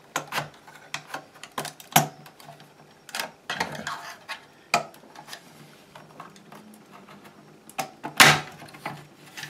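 Plastic case of a battery charger being pried apart with a spudger: irregular sharp clicks and plastic knocks as the tool works along the seam, with one loud snap about eight seconds in as a clip lets go.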